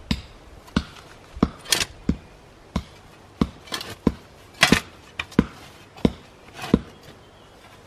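A spade digging into soil: about a dozen sharp strikes as the blade is driven into the ground, some followed by a short scrape as the earth is levered and thrown. The strokes stop near the end.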